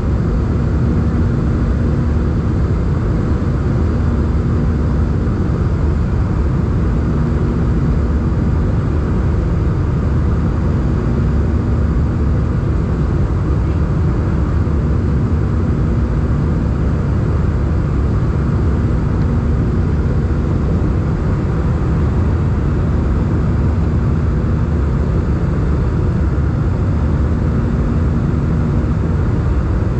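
Airbus A320 cabin noise in flight: a steady low rumble of engines and airflow, with a low hum that swells and fades about every three to four seconds.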